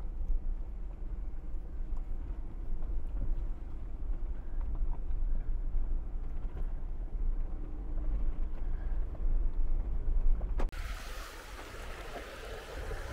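Land Rover Defender L663 driving slowly over a rocky track, heard as a steady low rumble with small knocks and rattles. About ten seconds in, the sound changes suddenly to a loud rushing hiss.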